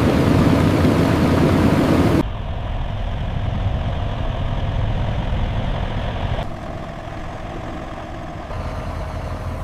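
Low, steady engine-like rumble that drops abruptly about two seconds in and shifts again twice later.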